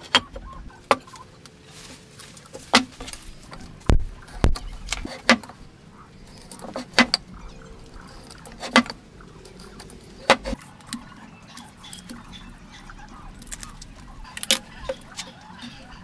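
Irregular sharp taps and knocks of hand woodworking, tools and wood pieces striking one another, about one every second or two, with two heavier thumps about four seconds in.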